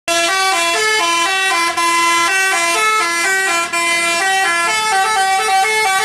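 Tour bus's Basuri telolet horn playing a melody of short pitched notes, changing note every quarter to half second.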